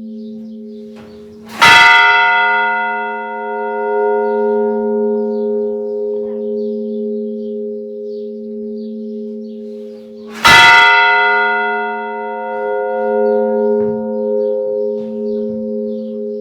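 Church bell tolled slowly: two strikes about nine seconds apart, each ringing out in a cluster of fading overtones above a deep, pulsing hum that sustains between strokes.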